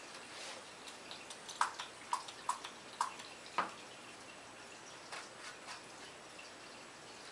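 Small pump-spray bottle of CA glue accelerator (kicker) pumped about five times in quick succession, short sharp spritzes over a couple of seconds, setting the fresh CA glue on the joint. A few fainter rustles follow.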